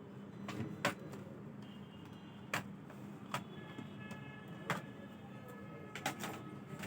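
Irregular sharp clicks and taps, about seven of them, from handling the plastic case and small tools while working on a Dell Inspiron 15 3000 laptop, over a steady low hum.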